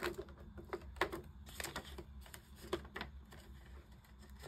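Polymer banknotes and a clear plastic binder pocket being handled, giving a string of irregular short crinkly clicks and taps as the notes are slid into the sleeve.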